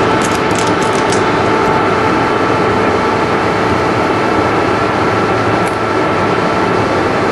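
Loud steady noise with a few constant humming tones running through it. A few light clicks come in the first second, and one more near the end.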